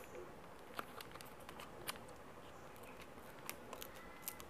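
Faint, scattered clicks and crinkles of scissors and a small plastic sachet being handled as the sachet is lined up to be snipped open.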